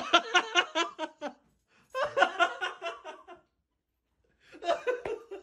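A person laughing in three bouts of quick, pulsing laughter with short pauses between, at a husky walking in dog boots.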